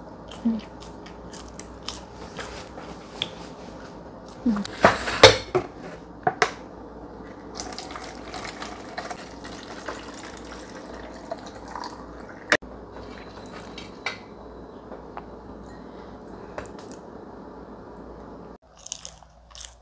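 Water pouring from an aluminium kettle into a plastic bottle, with knocks and clinks from handling; the loudest knocks come about five seconds in.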